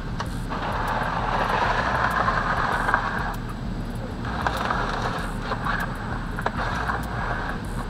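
Oil drain pan being dragged across the ground under the car, scraping in two long pushes with a short pause between them.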